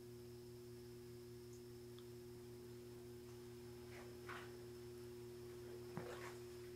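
Near silence with a faint steady low hum, and a couple of faint brief rustles in the second half.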